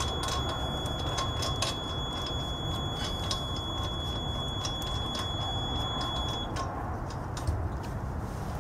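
Light irregular metal clicks and clinks from hand work at a car's wheel hub, as the wheel is being fastened. A steady high-pitched whine runs under them and cuts off suddenly about six and a half seconds in, over a low rumble.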